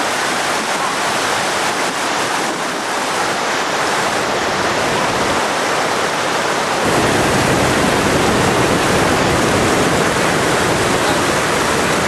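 River rapids: a steady rush of white water over rocks, growing louder and deeper about seven seconds in.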